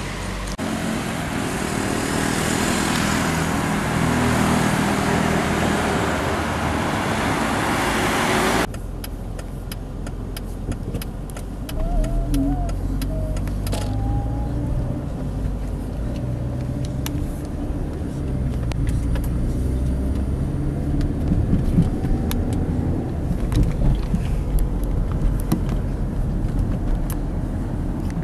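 Motor vehicle engine and road noise in two parts: a broad rush of traffic that cuts off suddenly about nine seconds in, then a lower, steady engine drone heard from inside a moving vehicle, with scattered light clicks.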